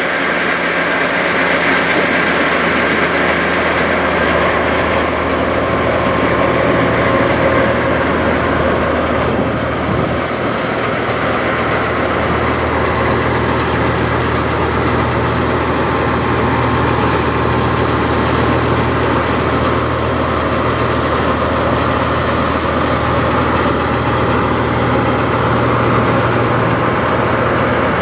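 Semi truck's diesel engine idling steadily, with a deep, even low hum.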